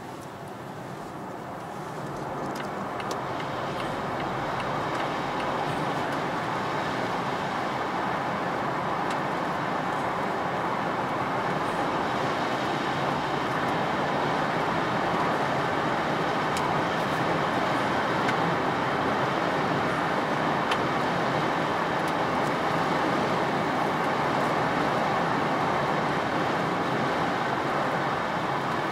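Tyre and wind noise inside the cabin of a Volvo C40 Recharge electric SUV at highway speed, a steady rushing with no engine note. It grows louder over the first few seconds, then holds. The cabin is not especially quiet for an electric car.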